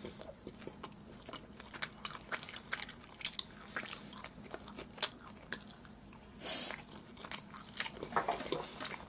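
Close-miked eating: a person chewing a mouthful of spicy stir-fried pork (jeyuk bokkeum) and rice, with many small irregular wet clicks and crunches. A short hissing breath comes about six and a half seconds in.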